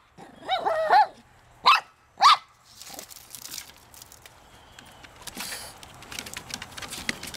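Small shih-tzu barking at a fish: a drawn-out, wavering bark about half a second in, then two short, sharp barks around two seconds in. After that come quieter scuffling and clicks.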